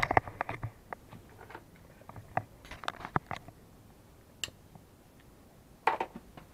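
Scattered light clicks and knocks from handling a handheld camera close to the microphone: a cluster at the start, a group around halfway, one sharp high click, and another cluster near the end.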